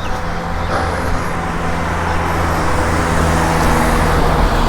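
Road traffic: a motor vehicle's engine running with a steady low hum, growing gradually louder as it nears.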